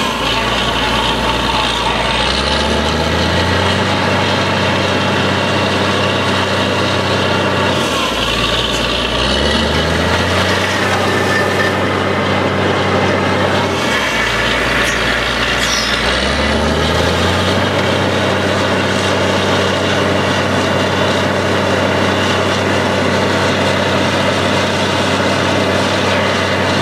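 Engine of a truck-mounted borewell drilling rig running steadily while drilling, its pitch climbing three times as it picks up revs.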